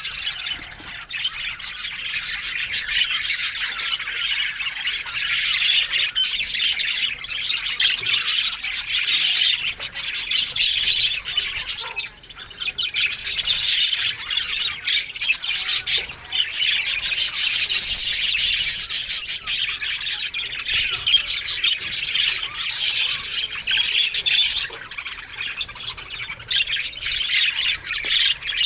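A colony of budgerigars chattering, chirping and squawking together in a dense, continuous mass of calls, dipping briefly about twelve seconds in.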